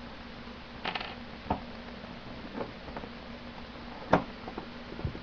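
A wooden box being handled, giving scattered short wooden knocks and clicks, about seven in all, with the loudest knock about four seconds in. A low steady hum runs underneath.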